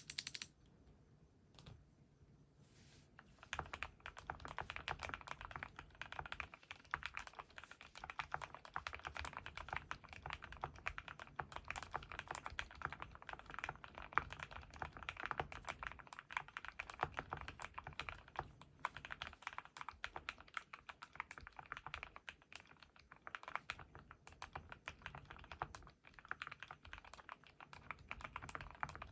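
Continuous typing on a KBDfans D60 Lite mechanical keyboard with lubed Keyfirst Cream switches and POM Jelly keycaps, tape- and foam-modded, heard through a camera microphone. The typing starts about three seconds in, after a brief sound at the very start.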